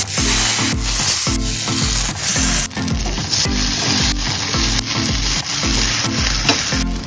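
Masala-coated raw banana slices sizzling as they shallow-fry in oil on a cast-iron tawa, with a metal spatula scraping the pan as it turns them. A steady beat of background music plays underneath.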